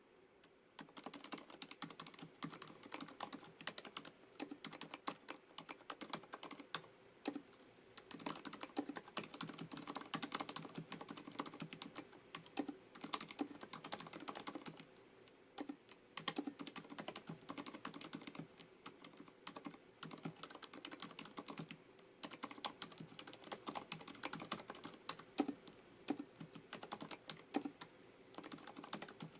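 Typing on a FILCO Majestouch MINILA-R Convertible mechanical keyboard with Cherry MX Silent switches: a fast, steady run of soft, damped keystrokes that starts about a second in, with brief pauses a few times.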